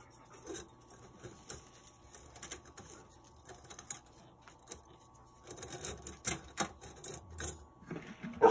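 Copper scrap clinking and scraping as pieces are pushed by hand into a crucible: irregular small clicks and taps, busier in the last few seconds, with one sharper knock near the end.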